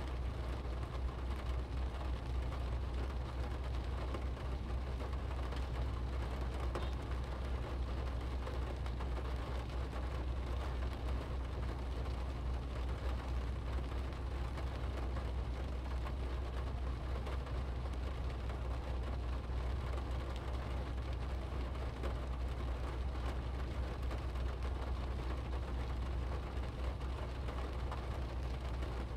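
Rain pattering steadily on a car's windshield and roof, heard from inside the cabin over a constant low rumble from the car and surrounding traffic.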